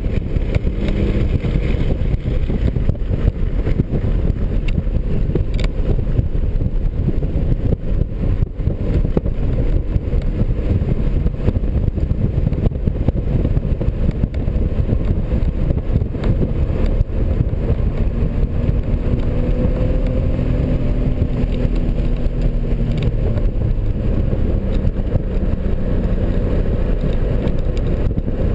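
2003 BMW 330i's 3.0-litre straight-six engine driven at track speed, heard from inside the cabin under a loud, steady rumble of road and wind noise. The engine note rises and falls faintly with the throttle.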